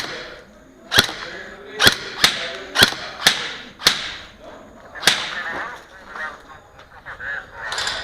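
Airsoft gun fired in single shots: about eight sharp cracks at an uneven pace, with a longer pause before a last shot near the end.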